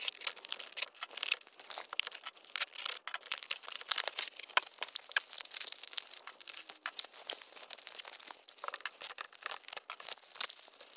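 A cardboard shipping box being opened and bubble wrap handled, played fast-forward: tearing tape and cardboard, then bubble wrap crinkling, in a dense run of quick crackles and rustles.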